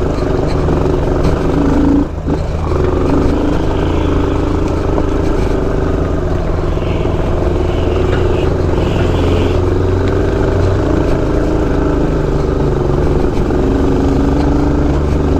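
Kawasaki KLX dirt bike's single-cylinder four-stroke engine running steadily at low revs, close to the rider's camera, briefly dipping about two seconds in.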